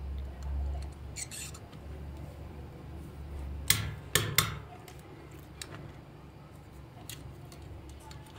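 Small handling clicks of soldering work on a toy's circuit board, then three sharp metallic clicks a little before halfway as the soldering iron is knocked into its coiled metal holder, over a low steady hum.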